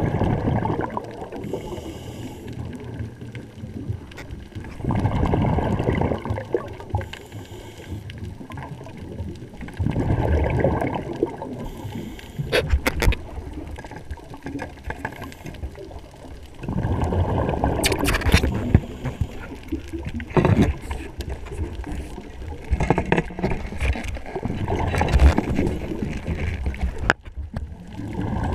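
Underwater, heard through a camera housing: a diver's exhaled breath bubbling out about every five or six seconds, each burst lasting a second or two, with a few sharp clicks in between.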